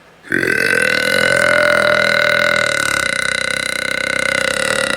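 One long, loud belch from a woman. It starts abruptly just after the beginning and holds a steady pitch for about four and a half seconds.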